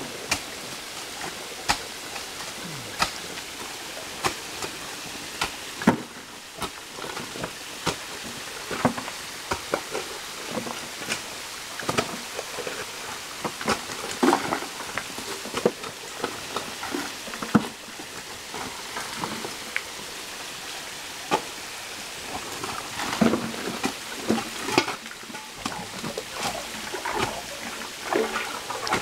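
Shovels digging and scraping into wet, gravelly silt washed into a small dam by heavy rain: irregular sharp scrapes and knocks about once a second, busier in the second half, over the steady rush of a stream.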